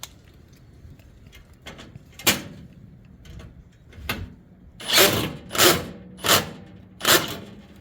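A bolt being tightened with a hand tool fitted with a security bit: about six short mechanical scraping strokes, closer together and louder in the second half.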